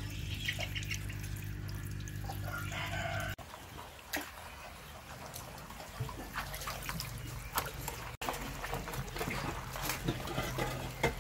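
Water trickling and splashing in a shallow tank, with scattered short clicks and a rooster crowing in the background. A steady low hum stops about a third of the way in.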